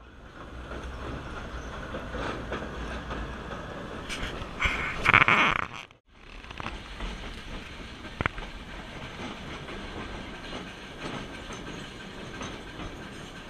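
Nilgiri Mountain Railway train running, a steady rumble of the coaches on the rack line, with a loud, high burst lasting about a second around five seconds in. The sound cuts out briefly around six seconds in, then the running noise goes on steadily.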